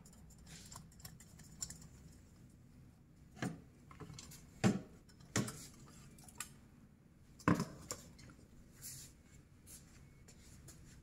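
Small hard parts being handled and set down: a series of sharp clicks and knocks, with four louder knocks in the middle and fainter ticks between.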